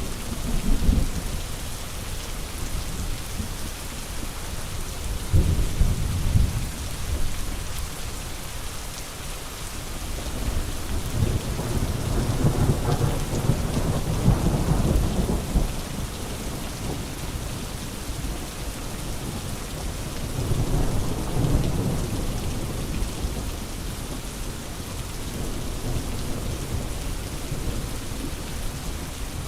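Steady rain on a surface, with several rolls of low thunder rumbling through it; the longest roll swells near the middle.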